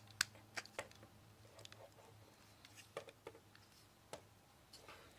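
Scattered small clicks and taps of hard plastic toy parts being handled and pressed together on a transformable figure, three sharper clicks in the first second and fainter ones after, over a faint low hum.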